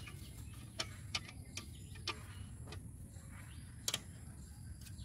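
About eight sharp clicks at uneven intervals, two of them close together a little before the end, over a steady low rumble.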